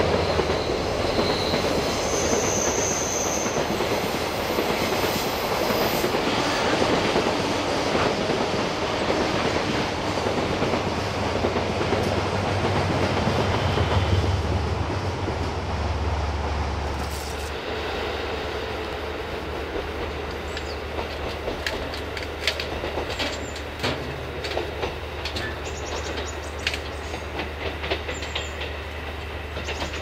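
A long container freight train's wagons rolling past on a curve, wheels clattering over the rail joints in a dense, steady rumble. A little past halfway the rumble drops as the tail of the train goes by, leaving a quieter steady noise with scattered sharp ticks.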